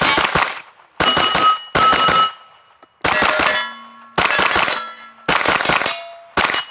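Suppressed 9mm Stribog SP9A3G roller-delayed carbine fired in several quick strings of shots. Steel targets clang and ring on after the hits.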